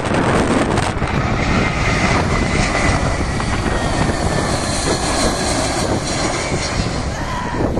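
Jet engines of a British Airways Airbus A319 on final approach, passing low overhead with its gear down: a steady jet noise with a faint high whine that sinks slightly in pitch as it goes by.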